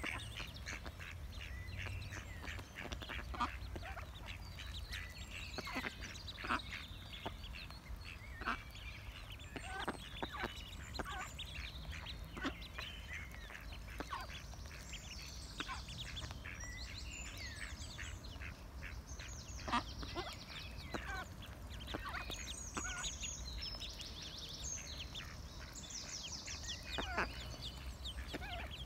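Mallard ducklings peeping as they feed: many short, high-pitched calls scattered throughout, crowding together in quick runs after about 22 seconds.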